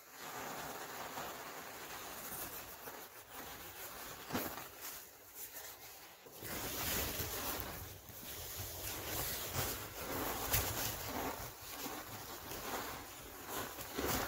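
Fine powder pouring and falling in a heap into a plastic bin, a steady soft rushing hiss. About six seconds in it grows louder and fuller, with swells as more powder lands.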